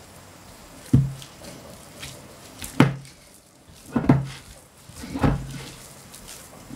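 Hands kneading a flour dough in a glass bowl, with four thumps, a second or so apart, as the dough is pressed down and the bowl knocks on the board beneath it.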